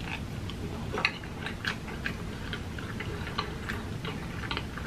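A man chewing a mouthful of food close to the microphone, with irregular short mouth clicks and lip smacks, several a second.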